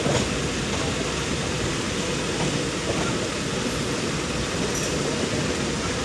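Steady running noise of a train moving along the rails, heard from aboard the moving coach.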